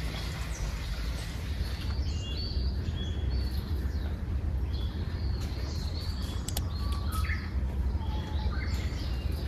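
Birds chirping and calling in short, high notes, several overlapping, with a few lower falling calls near the end, over a steady low outdoor rumble.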